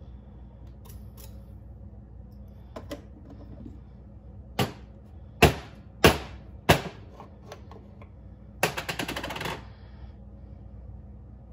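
Espresso portafilter with a dosing funnel knocked down on a stainless steel counter four times, sharp knocks about half a second apart, to settle the ground coffee before tamping. About a second of fast metallic rattling follows near the end.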